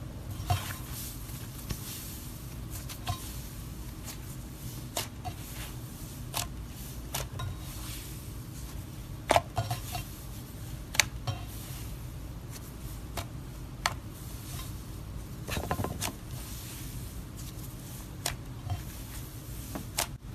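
Fluffy, textured slime being pressed, poked and stretched by hand: irregular sharp clicks and soft crackles over a steady low background hum.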